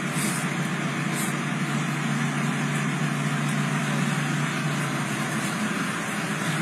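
Motor vehicle engine running steadily, a low drone under an even hiss of street noise.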